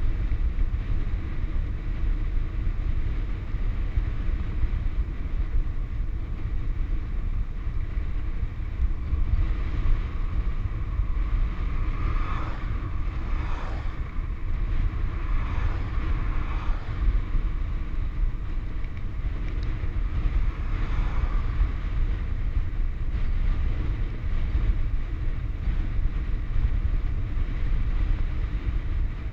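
Wind rushing over a handlebar-mounted camera's microphone on a fast bicycle descent, a steady low roar. Around the middle, a few oncoming cars pass, their sound sliding down in pitch as they go by.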